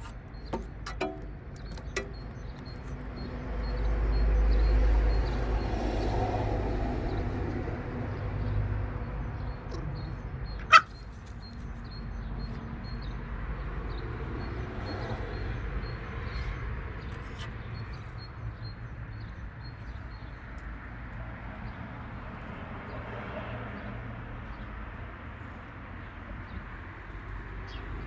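Street ambience: a motor vehicle passes with a low rumble that swells a few seconds in and fades, over steady background traffic noise. A single brief sharp sound rings out about eleven seconds in.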